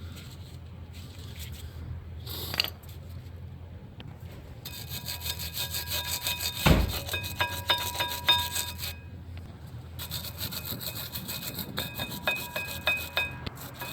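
Rapid back-and-forth hand scraping on brake hardware, metal ringing under each stroke, in two runs of about four seconds with a short pause between. A single sharp knock comes about seven seconds in.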